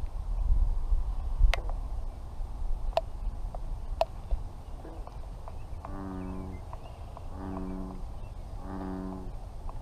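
A frog calling from the pond: a deep croak repeated three times, each under a second long, starting about six seconds in. Wind rumbles on the microphone, and there are a few sharp clicks in the first seconds.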